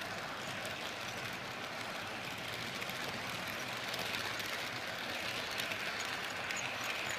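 HO-scale model freight trains running past on the layout's track: a steady rolling noise of the wagons on the rails, growing a little louder about four seconds in as the second train passes close by.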